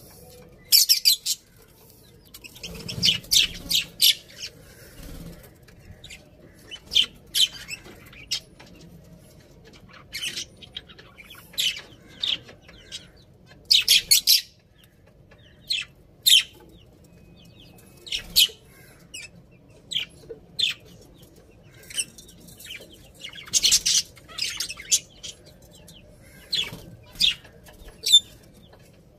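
Budgerigars chirping: short, high, sharp chirps and brief clusters of chatter every second or two.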